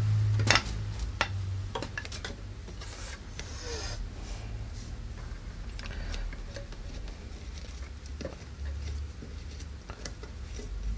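Hands handling a slide miter saw's table and wood offcuts: rubbing and scraping, with a few light clicks and knocks in the first few seconds, over a low steady hum.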